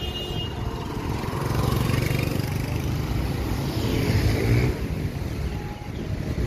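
City street traffic: cars and motorbikes running and passing, their engine pitch rising and falling as they go by. A short high-pitched tone sounds right at the start.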